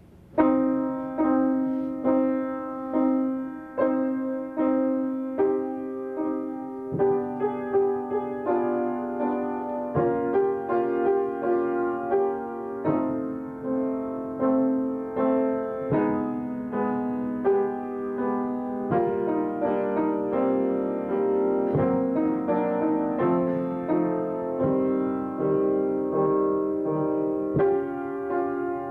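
Upright piano played solo: a slow piece of notes and chords struck and left to ring, starting about half a second in.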